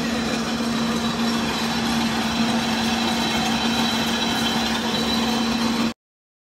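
Loud, steady din of jute mill machinery with a constant hum running through it; the sound cuts off abruptly about six seconds in.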